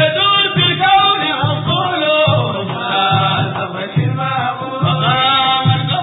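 Sudanese madeeh, a Sufi praise song for the Prophet: voices chanting the melody over a steady low drum beat, a little more than one beat a second.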